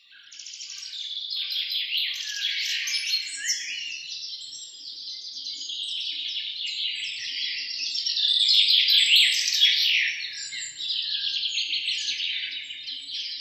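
Dense chorus of many small birds, overlapping chirps, trills and quick sweeping calls, fading in at the start and growing louder towards the middle.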